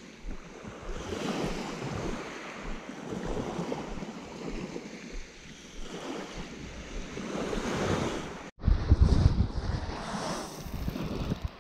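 Waves washing onto a shingle beach, rising and falling, with wind on the microphone. After a sudden break about two-thirds through, the low wind rumble is louder.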